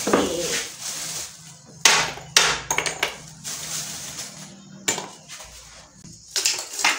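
Lumps of charcoal dropped into a ceramic-lined metal charcoal stove, knocking and clattering in a few separate sharp hits.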